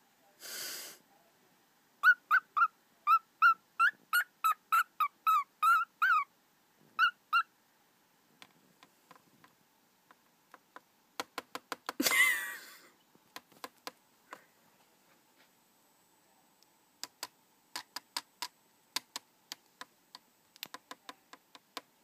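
Cockatiel giving a quick run of about fifteen short whistled chirps, then a single harsher, noisier call about twelve seconds in. Its beak taps on a laptop keyboard, making sharp irregular clicks, mostly in the second half.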